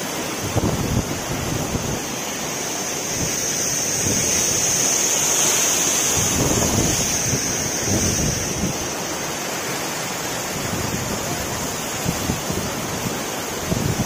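Waterfall crashing down a rock face close by, a steady loud rush of falling water, with gusts of wind buffeting the microphone.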